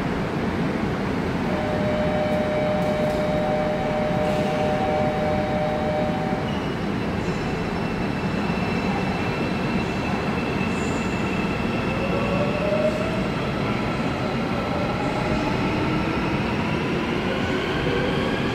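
Electric train on the Airport Railroad (AREX) line beginning to pull out of an underground station behind platform screen doors: a steady rumble, then from about twelve seconds in a rising motor whine as it accelerates.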